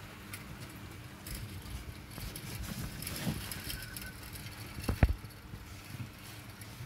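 OO gauge model train running on the layout: a steady low motor hum with small clicks of the wheels on the track, and one sharp knock about five seconds in.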